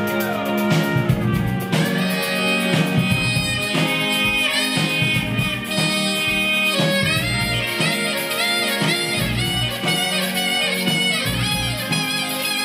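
Live band playing jazz: saxophone and trumpet play lead lines with quick rising runs over drums.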